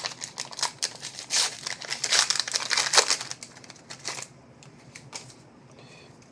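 A trading-card pack wrapper crinkling and tearing as it is opened: a dense run of crackles that dies away about four seconds in.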